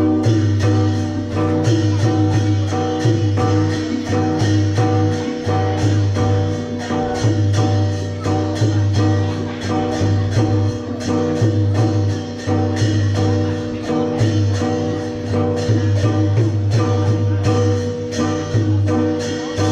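Festival dance music: a quick, steady beat of sharp percussion strikes over a pulsing low drum and held melodic tones.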